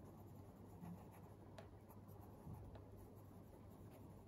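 Faint scratching of handwriting on a writing surface, a few light strokes over a quiet low room hum.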